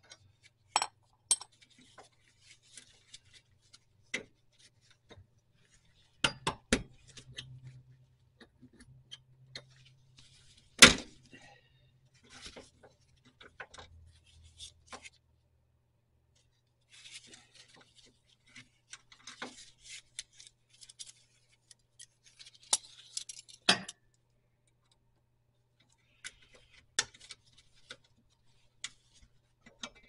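Hand tools clinking and scraping against the parking brake cable, spring and brake hardware under a 1975 Corvette: scattered metallic clicks and clinks in small clusters, the loudest a sharp knock about eleven seconds in. A low steady hum runs underneath.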